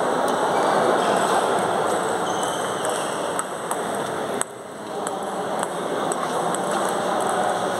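Table tennis balls clicking off paddles and tables, irregular hits from several rallies at once, over a steady noise of the sports hall.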